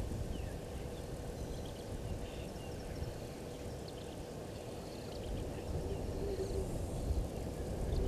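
Wind rumbling and buffeting on an outdoor microphone, getting stronger near the end, with faint short bird chirps here and there above it.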